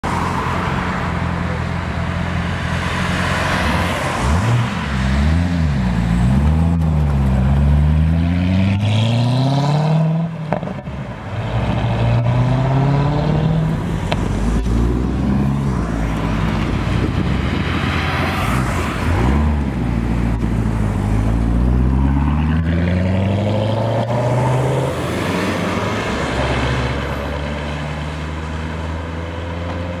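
Chevrolet Corvette V8 accelerating hard, its pitch climbing steeply, dropping at each gear change and climbing again, over and over. Loud throughout, with a short dip about ten seconds in.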